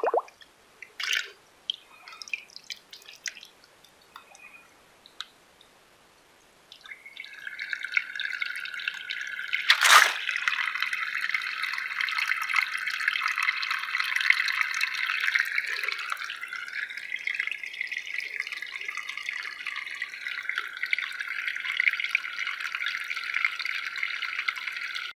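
Water dripping and trickling at a flowing artesian well. There are scattered drips for the first several seconds, then a steady trickle from about seven seconds in. One sharp, sudden sound comes about ten seconds in.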